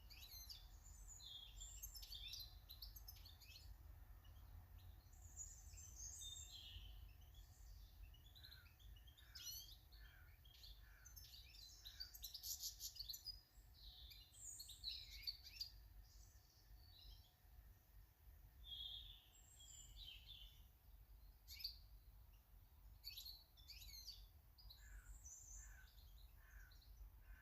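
Small garden birds chirping and calling faintly, with many short high chirps and trills throughout, over a steady low rumble.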